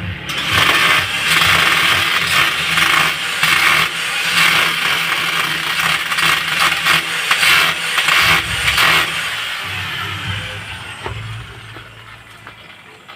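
Power drill boring into a wall, a loud gritty rattle that runs in irregular pushes and stops about nine seconds in.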